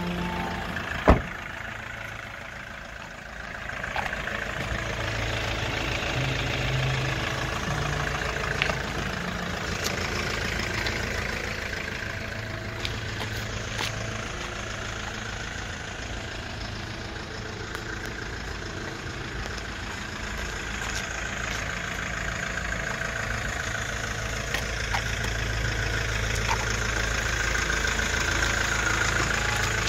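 Hyundai Porter light truck's engine idling steadily, with one sharp knock about a second in.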